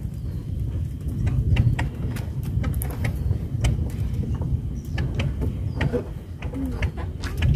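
Steady low rumble of wind on the microphone, with scattered light clicks and taps from fishing line being handled by hand in a small wooden boat.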